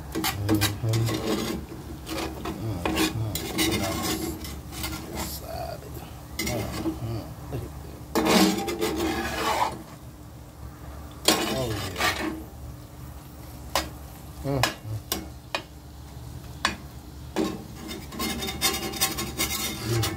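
A metal spatula scraping and stirring a ground-meat and egg scramble around a cast iron skillet, in irregular rasping strokes. Longer, louder scrapes come about eight and eleven seconds in and again near the end.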